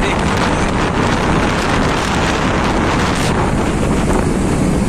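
Steady wind noise buffeting the microphone of a phone carried on a moving motorcycle.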